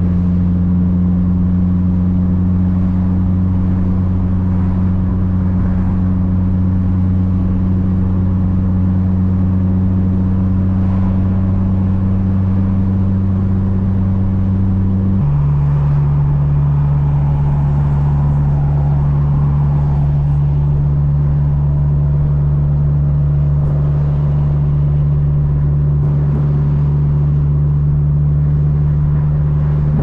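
Mitsubishi Lancer Evolution VIII's turbocharged 4G63 inline-four droning steadily at cruise, heard from inside the cabin. About halfway through, its pitch steps down abruptly and then holds steady again.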